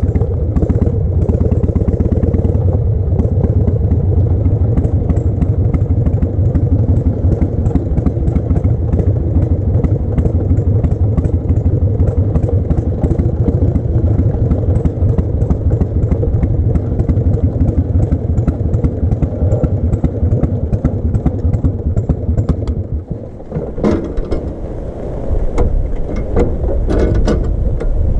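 1988 Harley-Davidson Heritage Softail's 1340 cc Evolution V-twin running steadily under way with the sidecar rig. Near the end the engine note suddenly drops and changes, with a few knocks.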